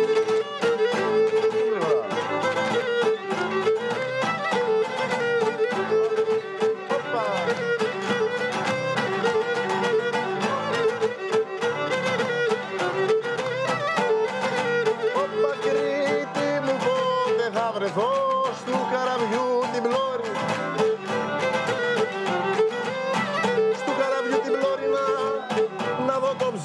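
Instrumental Cretan folk dance tune: a Cretan lyra bowing a fast, ornamented melody over a steady strummed laouto accompaniment.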